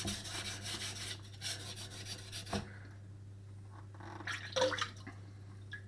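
Chef's knife edge rasping across a coarse 800-grit JNS water stone in quick strokes, setting the initial bevel; the coarse stone cuts fast. The strokes thin out and stop about two and a half seconds in, followed by a few faint drips and taps.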